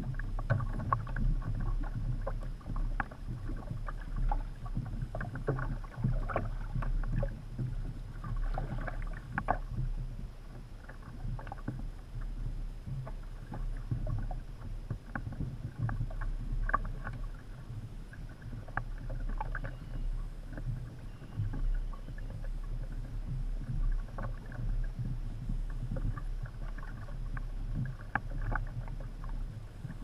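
Water lapping and slapping against the hull of a Hobie Adventure Island sailing kayak under way, in many small irregular splashes over a low steady rumble.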